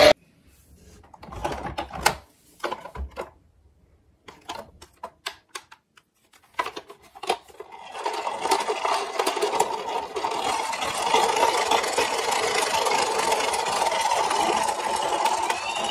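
Scattered clicks and knocks as a toy ambulance is handled in a cardboard box, then, from about halfway, a steady mechanical whirring hum from the toy ambulance.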